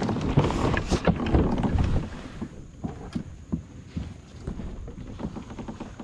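Handling noise close to the microphone: a sleeve brushes and rubs past for about two seconds, then scattered light clicks and taps of fishing gear being handled.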